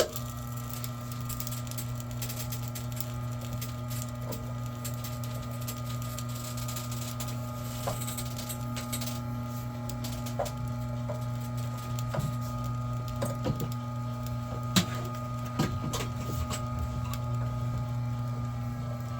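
Vevor electric wire stripping machine switched on and running with a steady motor hum while a thick cord is fed through to slit its outer sheath, with scattered sharp clicks and knocks, the loudest about 15 seconds in.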